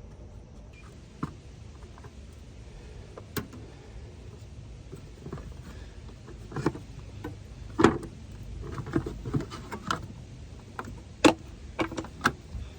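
Irregular metallic clinks and knocks of hand tools and parts being handled in a car's engine bay, a dozen or so scattered strikes, the sharpest about eight and eleven seconds in.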